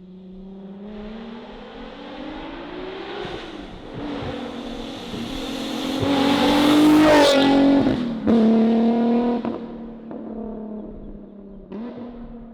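Supercharged Nissan 370Z's 3.7-litre V6 revving up hard through a titanium dual exhaust, rising in pitch for about seven seconds to a peak. A brief break follows, then it is loud again and fades away.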